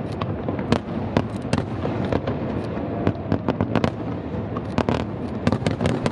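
Fireworks display: a rapid, continuous barrage of aerial shell bursts, several bangs a second, over a steady rumble.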